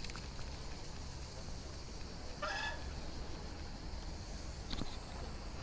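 A bird gives one short call about halfway through, over a steady low rumble, with a single click near the end.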